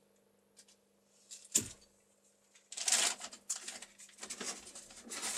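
One sharp knock about a second and a half in, then a run of crackly rustling and clattering of packaging as items are handled and pulled out of a cardboard box.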